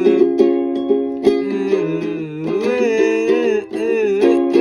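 Music: the closing bars of a cover song, with picked chords on a plucked string instrument under a wordless sung melody.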